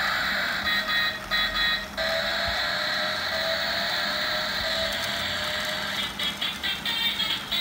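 Battery-powered toy projector car playing its built-in electronic sounds through a small tinny speaker: rapid beeping in the first two seconds, then a string of stepping electronic notes, then a rhythmic tune starting near the end.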